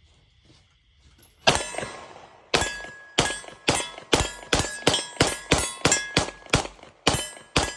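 IWI Masada 9mm pistol firing a rapid string of about thirteen shots, starting about a second and a half in, each shot followed by a clanging ring, as of a steel target being hit.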